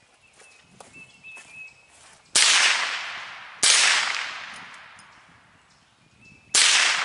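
Three shots from a Henry U.S. Survival rifle (AR-7 in .22 LR), about two and a half seconds in, a second later, and again near the end, each a sharp crack followed by a long echo fading over about a second.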